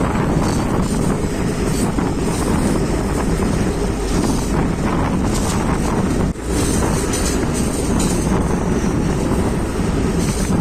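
Sri Lanka Railways Class S10 diesel multiple unit running, a steady loud rumble with wind noise on the microphone. The sound briefly drops about six seconds in.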